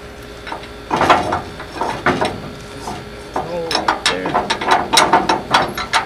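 Steel locking hitch pin pushed through a trailer-hitch receiver and ball-mount shank: a run of metal clicks, scrapes and knocks as the pin is worked into place.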